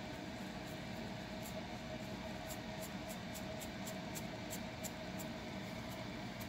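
Fingernails scratching a dry, flaky scalp through natural hair: short, sharp scratches, about three a second, over a steady background hum.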